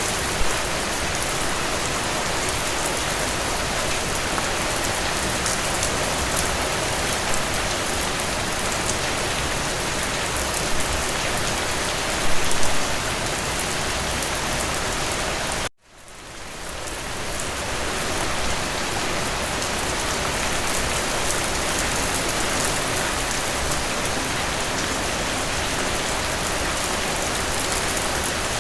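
Steady rain falling, a dense even hiss of drops on surfaces. About halfway through it cuts out abruptly for an instant, then fades back in over a couple of seconds.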